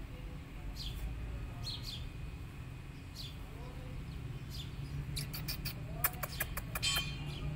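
A tiny kitten mewing faintly, with short high bird chirps every second or so. A quick run of clicks and rustles comes near the end.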